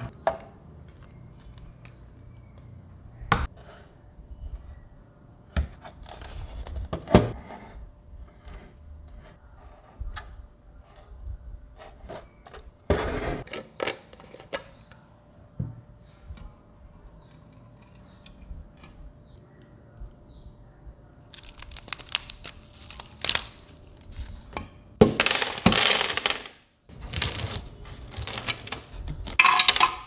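Handling noises from a small plastic desktop evaporative air cooler: scattered clicks and knocks as its plastic parts and filter cartridge are pulled out and set down. In the second half come several longer stretches of rushing noise as water is poured into the tank, and near the end ice cubes clink against the plastic.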